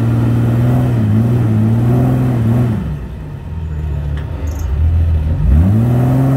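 Jeep Wrangler LJ rock crawler's engine pulling under load as it climbs a steep rock ledge. It runs steadily for about three seconds, eases off, then revs up again about five and a half seconds in.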